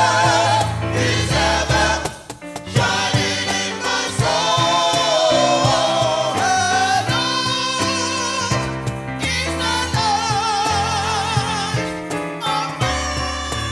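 Gospel choir singing with instrumental backing and a steady bass line, breaking off briefly about two seconds in.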